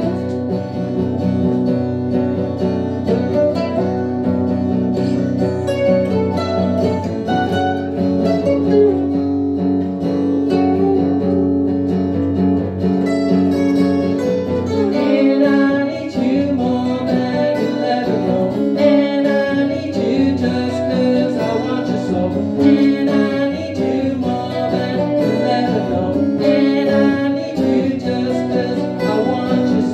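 Two acoustic guitars strumming while a harmonica, played into a vocal microphone, carries the melody; it grows fuller and brighter about halfway through.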